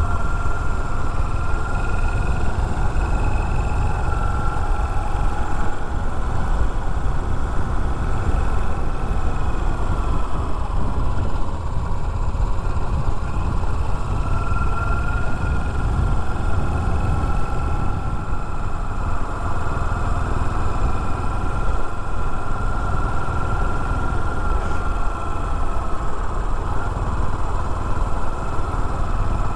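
Yamaha SR400's air-cooled single-cylinder engine running steadily as the motorcycle rides along, with wind and road rush. The engine note dips briefly near the middle and then rises again.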